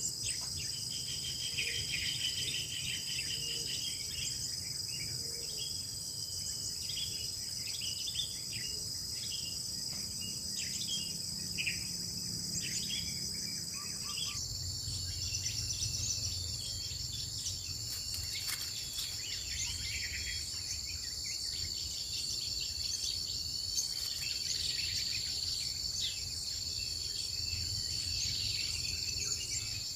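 Steady high-pitched chorus of insects trilling, which steps slightly lower in pitch about fourteen seconds in, with short bird chirps and calls scattered through it.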